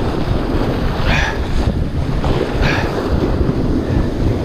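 Wind buffeting the microphone over the wash of breaking surf, with two brief hisses about one and nearly three seconds in.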